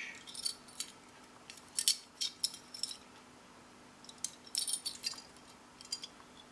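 Small metal clicks and clinks in several short clusters, as an old padlock and its keys are handled.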